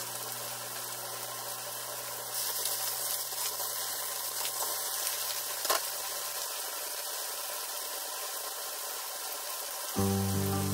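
Squash and vegetables in shrimp-paste sauce simmering and sizzling in a nonstick pan: a steady hiss that grows louder about two seconds in, with a single click near the middle. Background music comes in near the end.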